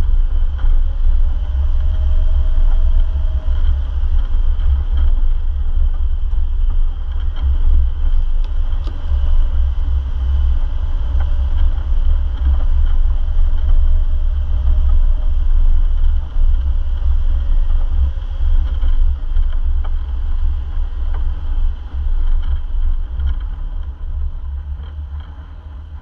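A four-wheel-drive vehicle driving on a rough track: a heavy, steady low rumble with the engine note rising and falling twice, fading near the end.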